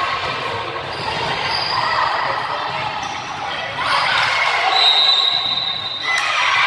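Volleyball rally in a gymnasium: players and spectators calling and shouting, with the thumps of the ball being played. A high, steady squeal lasting about a second comes in around two-thirds of the way through.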